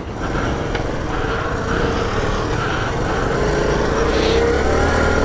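Honda CT110 postie bikes' 105cc single-cylinder four-stroke engines running as the bikes pull away, getting gradually louder.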